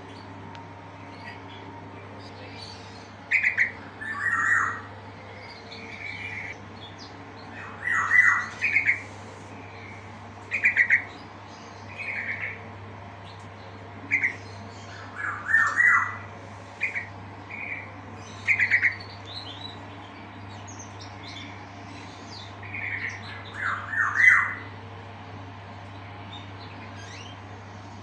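Yellow-vented bulbul (trucukan) giving short, bubbly chirping calls in about a dozen scattered bursts, some single notes and some quick runs of two to four, falling silent for the last few seconds.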